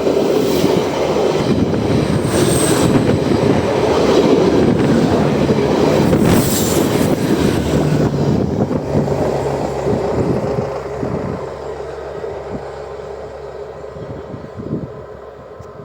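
A TCDD train passes close by: loud rumbling running and wheel noise. It fades away steadily over the last few seconds.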